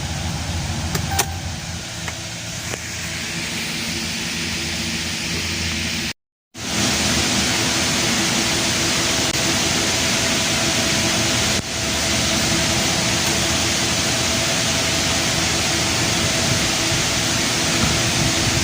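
Dodge Ram 5.7-litre HEMI V8 idling steadily, running again after a new starter motor cured its no-crank fault. About six seconds in the sound cuts out for a moment and comes back louder and hissier, still steady.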